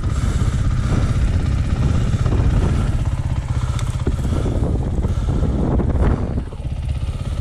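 Off-road motorcycle engine running steadily, with a brief drop in level about six seconds in.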